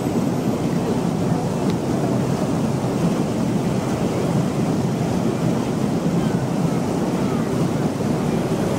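Steady rushing noise of a canal tour boat under way, its motor and the water along the hull blending into one even sound.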